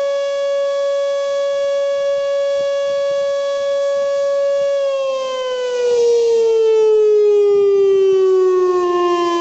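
Outdoor warning siren sounding a test of the emergency warning system: a loud steady tone for about five seconds, then winding down, its pitch falling steadily to the end.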